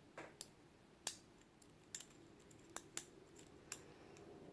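Faint, irregular light clicks of small metal lock pins being handled as they are taken out of a lock core, about seven ticks a few tenths of a second to a second apart.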